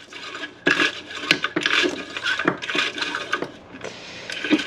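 Recoil starter of a Stihl 010 AV chainsaw being worked by hand while its rope and spring tension are tested: irregular scraping and rattling of the rope and plastic housing, with several sharp clicks and knocks, the loudest near the end.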